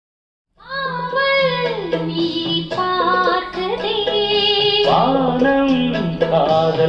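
A song with a high sung voice over instrumental backing and a steady low note, starting abruptly about half a second in after dead silence.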